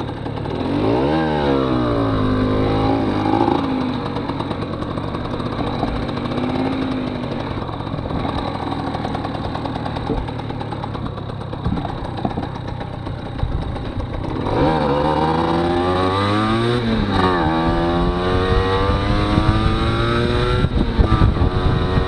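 A 1992 Aprilia Classic 50 moped's two-stroke 50 cc engine pulls away with a rising note about a second in. It settles lower and rougher for several seconds, then accelerates again with a string of rising whines from about 14 seconds in, up to a steady cruising note.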